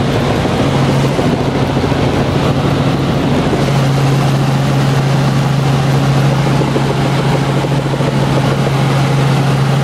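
Helicopter in flight heard from inside its cabin: loud, steady engine and rotor noise with a strong low hum under an even rush of air.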